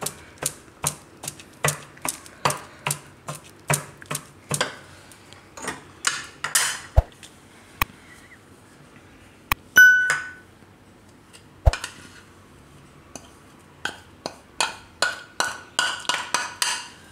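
Metal pestle pounding in a metal mortar, sharp clinking strikes about three a second, grinding garlic, salt and red chili powder into chutney. The pounding stops for several seconds, with a few knocks and a short bright ringing ping about ten seconds in, then resumes near the end.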